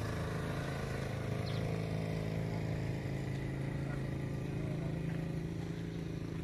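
An engine running steadily with an even, unchanging low hum.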